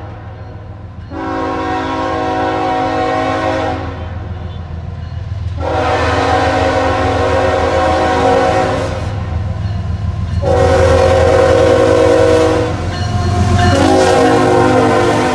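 Diesel freight locomotive's air horn sounding four long blasts, each a chord of several notes; the fourth starts near the end and is still going. A steady low rumble from the approaching loaded coal train runs underneath.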